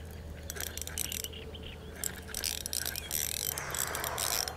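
Fishing reel clicking and ratcheting in quick runs while a hooked fish is being played on a bent rod.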